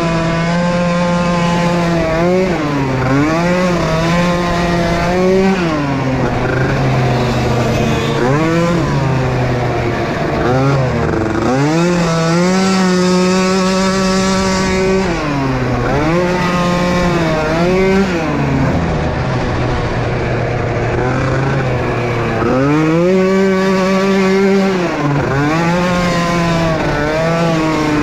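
Small youth racing ATV engines revving hard, the pitch climbing and dropping again and again with throttle and gear changes. About halfway through, one engine holds a high steady pitch for a few seconds, as at wide-open throttle.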